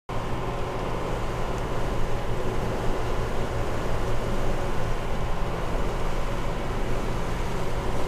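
A motor yacht's engines running steadily under way, a constant low drone with a faint higher hum, mixed with the rush of water and wake along the hull, heard from inside the galley with the door open.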